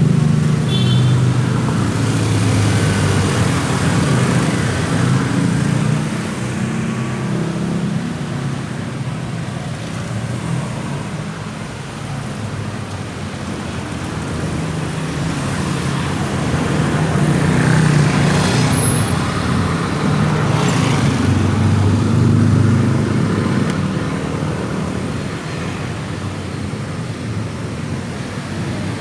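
Motor-vehicle traffic rumbling past, swelling and fading as vehicles go by, loudest near the start and again about 18 and 22 seconds in.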